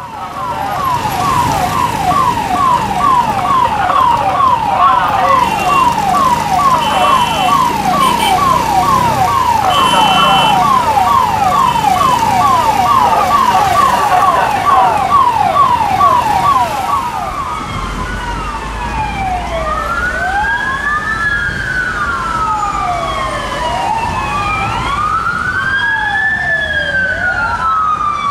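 Ambulance siren in fast yelp mode, sweeping up and down about two and a half times a second, switching about 17 seconds in to a slow wail that rises and falls every few seconds, over the rumble of road traffic.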